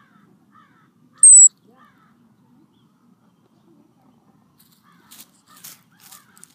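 A ground squirrel gives a single short, very high-pitched chirp about a second in, dropping slightly in pitch. Near the end come a few brief rustles in the wood-chip mulch as the squirrel moves.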